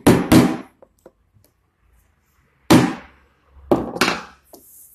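Hammer driving a small nail into the table saw's table: two quick blows at the start, then after a pause a louder knock and two more blows about a second later.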